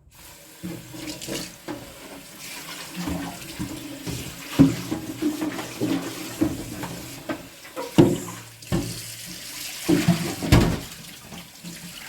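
Tap water running into a sink as a removable fridge tray is rinsed under it, with several sharp knocks as the tray is handled and bumps against the sink.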